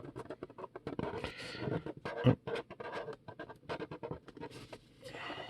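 Hands opening and handling a trading-card pack and its top-loaded cards: irregular rustling, scraping and small plastic clicks.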